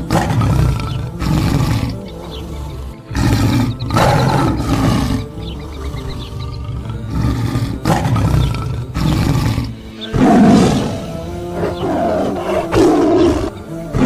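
Big-cat roars and growls, a series of loud calls every second or two, over background music.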